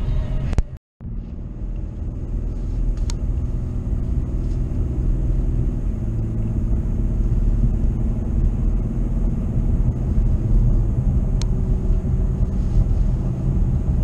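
Steady low road and engine rumble of a car driving at highway speed, heard from inside the cabin. About a second in it cuts out briefly, then the rumble resumes.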